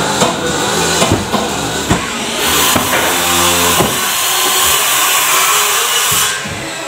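Background music, joined from about two and a half seconds in by a loud, steady hiss that cuts off sharply about half a second before the end.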